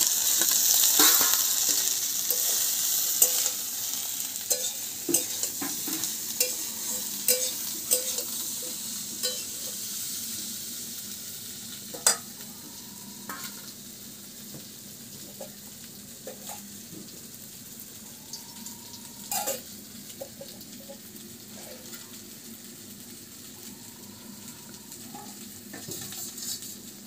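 Fried potato and raw green banana pieces dropped into hot oil and fried spice paste in a wok: a loud sizzle that gradually dies down over the first dozen seconds. A metal spatula scrapes and clicks against the wok as the pieces are stirred into the masala.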